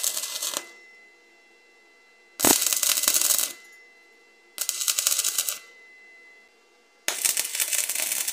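Stick (shielded metal arc) welding: short tack welds, the arc crackling and sputtering in bursts of one to two seconds. One burst ends about half a second in, three more follow after short pauses, and each cuts off abruptly as the arc is broken.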